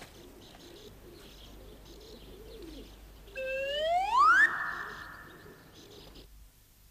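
Cartoon sound effect: a loud, whistle-like rising glide about halfway through, lasting about a second, then a hiss that fades and cuts off. Before it, faint chirps repeat at an even pace.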